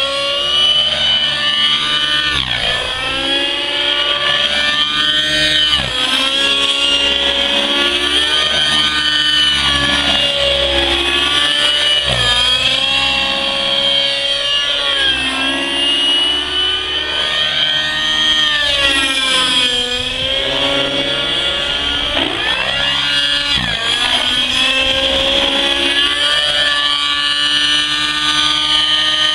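Nitro-powered radio-controlled helicopter in aerobatic flight: the glow engine and rotors whine steadily, the pitch sweeping down and back up again and again as the helicopter swoops past and changes power.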